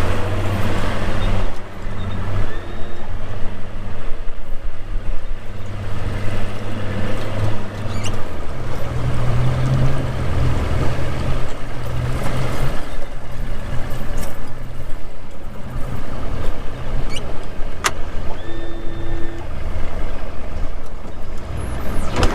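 Vehicle engine running at low revs, rising a little in pitch about eight seconds in, as when easing a trailer into position.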